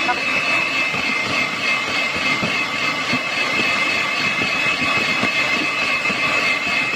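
Electric hand mixer running steadily with a constant whine, its beaters whirring through cake batter in a plastic bowl.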